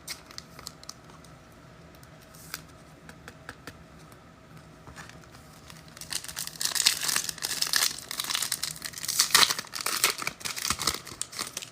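Foil trading-card pack wrapper being torn open and crinkled, starting about halfway in and going on for about five seconds, after a few faint clicks of cards being handled.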